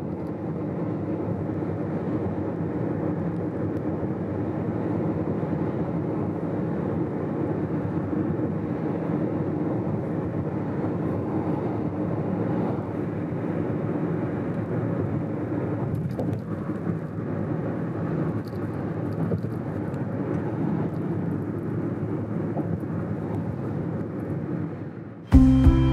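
Steady road noise and engine hum of a car driving along a highway. Music comes in suddenly near the end.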